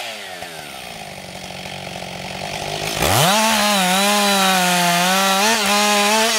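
Husqvarna 560 XP two-stroke chainsaw engine coming off the throttle and dropping to a low idle. About three seconds in it is revved sharply back to full speed and held there, its pitch dipping slightly as the chain cuts through spruce branches.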